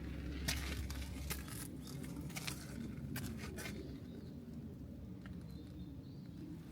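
Footsteps in snow: a handful of short, irregular steps in the first few seconds, then quieter ambience for the rest.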